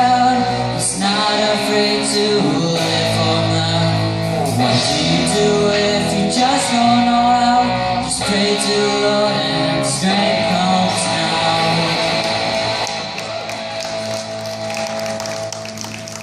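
Live pop-rock band playing: singing over electric guitar, bass, keyboard and drums. The music gets quieter over the last few seconds as the song draws to its close.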